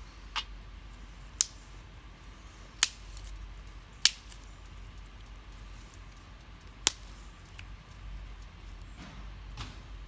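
Fatwood burning in a tin-can stove, giving a few sharp, irregularly spaced cracks, the loudest about four seconds in.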